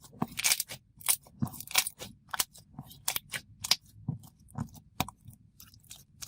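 Thick school-glue slime being poked and squished by hand, giving irregular sticky crackles and bubble pops, a few a second, fading off near the end.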